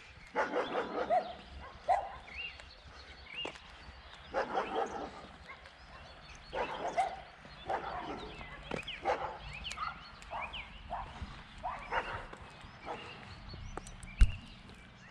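A dog barking repeatedly, in short separate barks spaced a second or so apart. A single sharp knock near the end.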